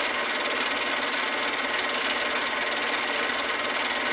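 Mini lathe running while 3000-grit sandpaper is held against a spinning brass workpiece to finish it: a steady, even rubbing hiss.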